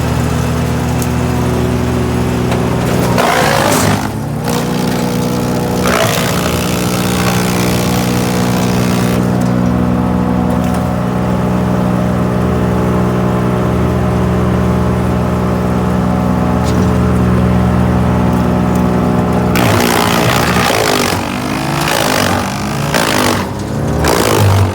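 GreenMech Arborist 150 wood chipper running steadily, with loud chipping as wood is fed in: briefly about three and a half seconds in and again at six seconds, then a longer stretch over the last five seconds, where the engine pitch wavers under load.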